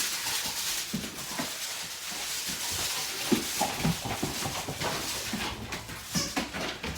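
Dogs tussling over a toy, with a steady scuffling hiss and a few short low dog grunts or growls scattered through it.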